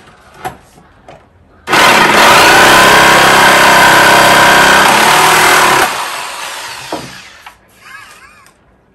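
Corded electric jigsaw cutting into a hard wooden plank: it starts abruptly about two seconds in, runs steadily for about four seconds, then is switched off and winds down over a second or two.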